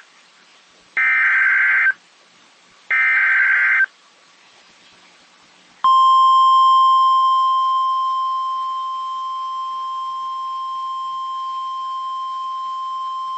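NOAA Weather Radio Emergency Alert System signal. First come the last two of the three SAME digital header bursts, each about a second long and two seconds apart, carrying the coded Local Area Emergency alert. Then, about six seconds in, the 1050 Hz weather radio warning alarm starts: one steady, piercing tone that holds.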